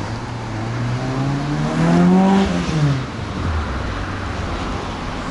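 A motor vehicle's engine accelerating as it passes close by: its pitch rises for about two seconds, is loudest as it goes past, then drops away. Steady tyre and wind noise runs underneath.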